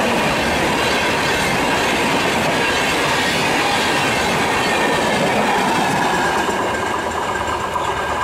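Kamrup Express passenger train with LHB coaches running past at speed, a steady rumble of wheels on the rails. The rear power car goes by about halfway through, and the sound eases slightly near the end as the train moves away.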